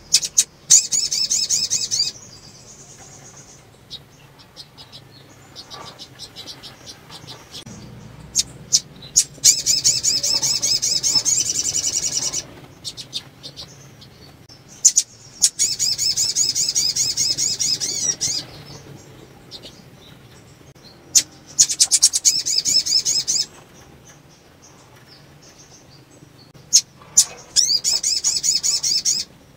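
Female sunbird (sogon) in breeding condition calling: five bursts of rapid, high, twittering trills, each a second and a half to three seconds long, with short sharp chips between them.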